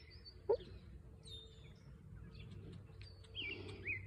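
Songbirds chirping, with short high notes that sweep in pitch, sparse at first and busier again near the end. One brief louder note comes about half a second in.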